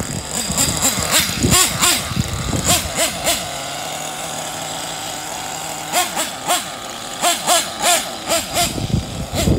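Kyosho Inferno NEO ST 3.0 1/8-scale nitro stadium truck's engine revving in short bursts, the pitch rising and falling over and over as it accelerates and lets off. In the middle it runs more steadily for a couple of seconds.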